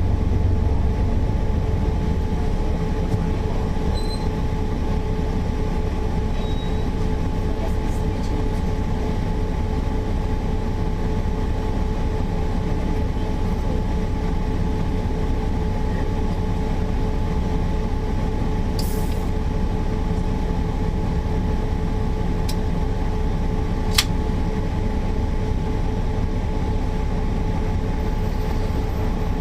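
Mercedes-Benz O408 bus running steadily, its diesel engine holding an even rumble with two steady whining tones over it and no change of pace. A sharp click sounds about 24 seconds in.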